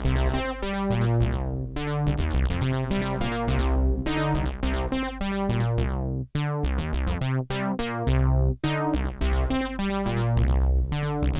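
Oberheim Matrix 1000 synthesizer notes played through an Echolette E51 tape echo running on VHS tape, a steady run of bright pitched notes with fading tails. There are two brief gaps a little past the middle.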